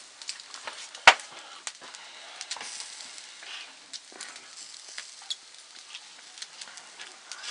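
Pork skewers grilling over wood embers: a steady sizzle with irregular crackles and pops as fat and embers heat, and one sharp loud crack about a second in.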